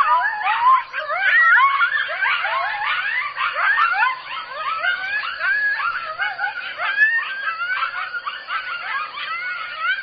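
A group of coyotes howling and yipping together, many short rising and falling calls overlapping in a continuous chorus.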